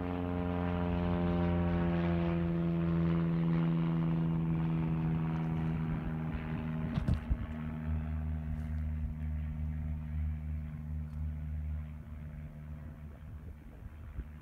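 Propeller aircraft flying past: a steady engine drone whose pitch falls slowly as it fades away. A brief knock comes about seven seconds in.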